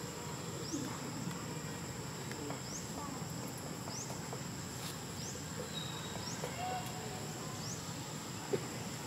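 Outdoor insect and bird ambience: a steady high insect drone with a short, high chirp repeating about once a second, and a few fainter chirps scattered through.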